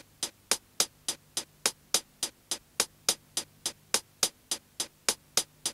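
Background music: a steady run of sharp ticks, about three and a half a second, over a faint low drone.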